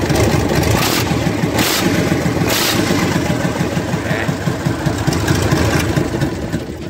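Scania 111's inline six-cylinder diesel engine running loud with no exhaust pipe fitted, firing straight out of the open manifold flange with a fast, rough pulse. Three short, sharper blasts come in the first three seconds.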